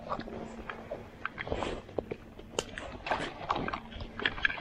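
Footsteps walking on an asphalt road, a loose run of taps and scuffs. A faint steady hum sits underneath and stops shortly before the end.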